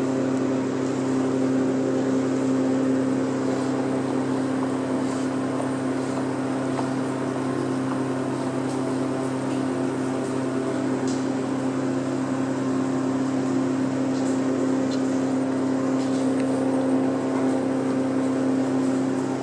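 A steady, unchanging motor hum, like an engine running at constant speed.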